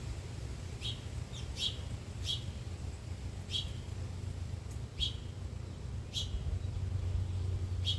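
A bird chirping repeatedly, short sharp chirps about one a second, over a steady low rumble.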